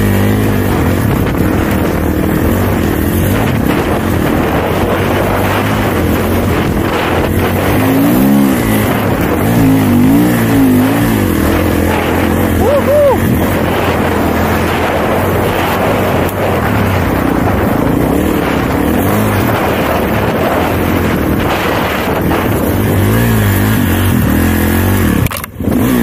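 Snowbike engine, a dirt bike converted with a front ski and rear track, running under load as it rides through deep snow, its revs rising and falling. The sound drops out briefly near the end.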